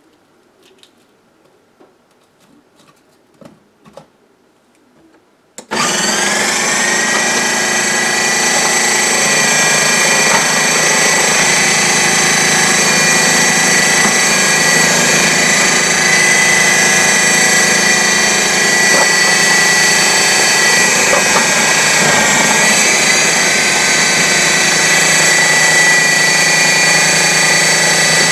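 A few light handling clicks, then about six seconds in a KitchenAid 13-cup food processor's motor starts suddenly, spins up and runs steadily with a high whine as its disc slices onions fed down the feed tube at medium thickness.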